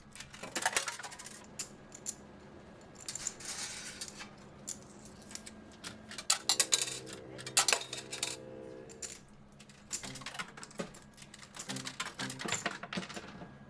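Casino ambience without voices: scattered clusters of sharp metallic clinks and clatters, with a stretch of steady electronic slot-machine tones from about six to eight and a half seconds.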